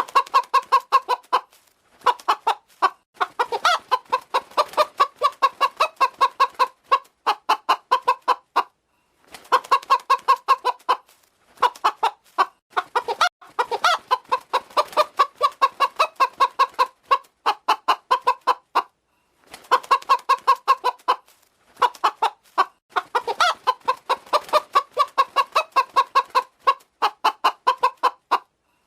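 A hen clucking in quick runs of short clucks, several a second, broken by brief pauses, with an occasional longer drawn-out call among them.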